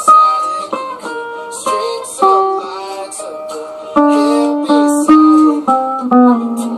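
Guitar playing a melodic line of single plucked notes, some sliding in pitch, with a stronger low note coming in about four seconds in.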